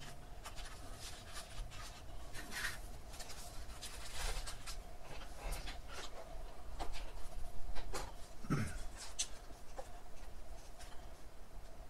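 Hands working gritty potting mix of peat moss and perlite around jade plant roots in a pot: scattered, irregular rustles, scrapes and light crunches.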